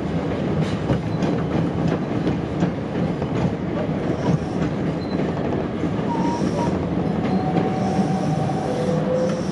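Hankyu commuter train running slowly through pointwork, heard from inside the front car: a steady rumble with irregular clacks as the wheels cross rail joints and switches. Faint wheel squeals come in over the second half.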